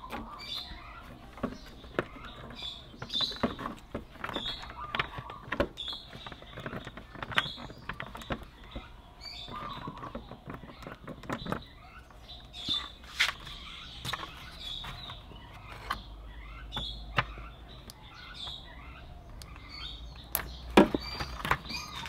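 Clicks and knocks of a scooter's plastic wiring connectors being handled, wiggled and pulled apart, with the loudest click near the end. A small bird chirps repeatedly in the background.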